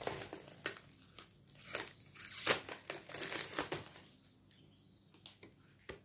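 Plastic packaging crinkling and rustling as it is handled and pulled open, in irregular crackles that are loudest about halfway through and die down to a few light clicks near the end.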